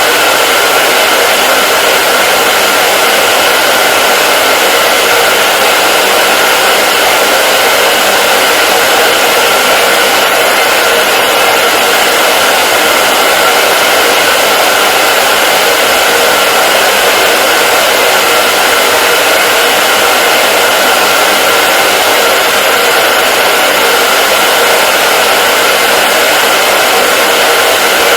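Hair dryer running continuously at a steady speed: an even, unchanging whooshing hiss with a faint steady hum in it.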